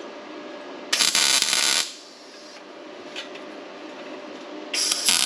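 Two short arc-welding tack welds, each a burst of about a second of steady crackling, the second starting near the end; they are tacking the top bulkhead support of a steel jack-mount kit in place.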